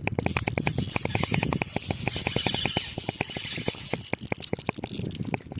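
Daiwa Legalis LT 2500 spinning reel's drag screaming: a fast, steady run of clicks, about a dozen a second, as a hooked catfish strips line off against the drag. A hiss runs over the clicks until a little after four seconds in; the clicks then go on more sparsely.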